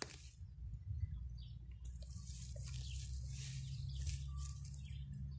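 Leaves and stems rustling as a hand picks wildflowers from low vegetation, over a steady low rumble on the microphone, with a few faint bird chirps.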